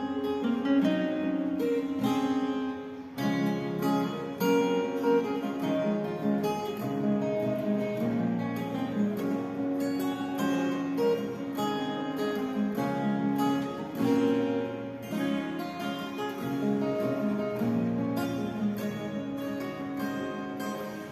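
Two acoustic guitars playing together, a steady run of picked notes over sustained chord tones.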